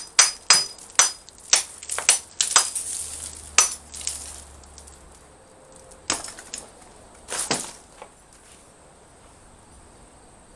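Steel smatchet blade chopping into a cinder block: a quick run of sharp strikes with a short metallic ring over the first four seconds, then a few more blows later on.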